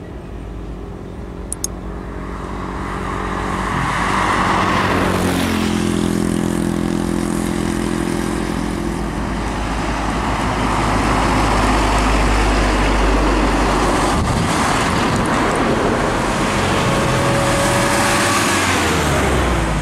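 Diesel engine of a Hino 500 container truck approaching and passing at close range. The engine note grows louder over the first few seconds and gives way to a steady roar of tyres and road noise as the truck goes by.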